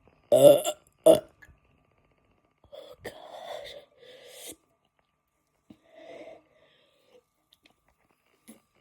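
A person burping from the gas of a carbonated soft drink: two loud burps in quick succession near the start, the second shorter. Softer, longer sounds follow around three to four seconds in.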